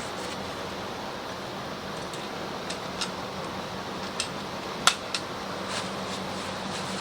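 A steady background hiss with a faint hum, broken by a handful of light, sharp clicks and taps; the loudest comes about five seconds in.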